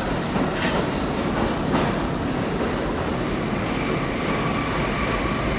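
R42 subway train pulling out into the tunnel, its wheels rumbling and clattering over the rails. A faint steady high whine comes in about three and a half seconds in.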